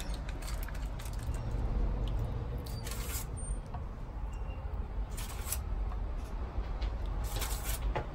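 Aluminium foil crinkling in a few short rustles as a foil packet is folded and handled, over a low steady hum.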